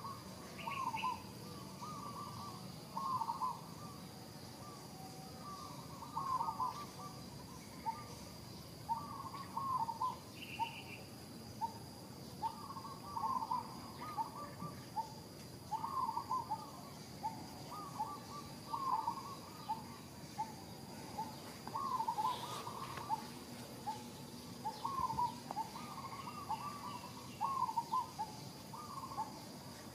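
Short animal calls repeated one or two a second, over a faint steady high tone.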